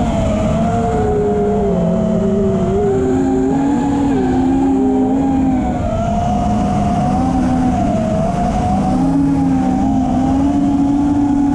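Racing quadcopter's four brushless motors (Rcinpower GTS-V2 1860KV) and propellers whining in flight, several pitches wandering up and down with the throttle, over a rush of wind, as picked up by the camera on the drone itself.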